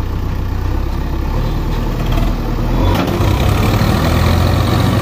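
Diesel engines of a Swaraj 855 tractor and a JCB backhoe loader running hard as the tractor pushes against the backhoe's front bucket. The low engine note shifts and grows louder about three seconds in, with a short click at that point.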